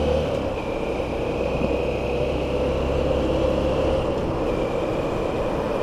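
Motorcycle riding at steady speed, engine running under a continuous rush of road and wind noise. The low rumble drops away about four seconds in.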